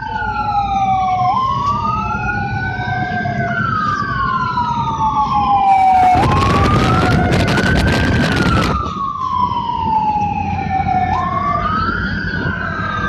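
Two electronic emergency sirens of an ambulance escort wailing together, their tones slowly rising and falling and crossing each other, over the low rumble of a moving vehicle. About six seconds in, a loud rushing noise rises over them for about three seconds.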